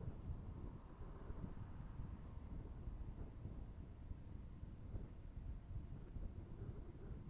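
An insect chirping in a steady rapid pulse, about six high chirps a second, over a low rumble.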